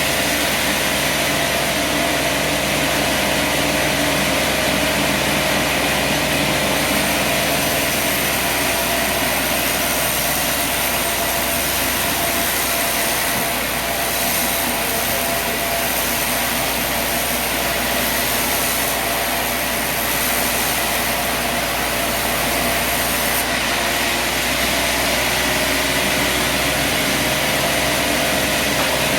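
Sawmill running steadily under engine power, a constant mechanical noise with a steady whine.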